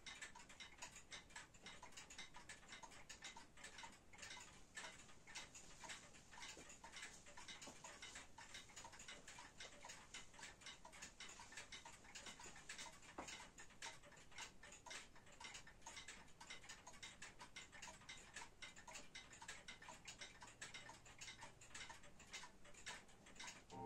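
Warmink Wuba Dutch weight-driven wall clock ticking faintly and steadily as its pendulum movement runs.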